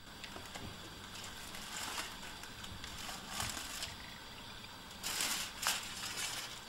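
Aluminium foil crinkling and crackling in short bursts as a frying pan is lifted off the foil-covered ironing press, the loudest burst about five seconds in.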